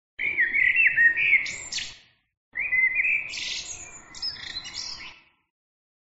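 A songbird singing two phrases with a short pause between them. Each phrase is a run of clear whistled notes that ends in higher, thinner twittering.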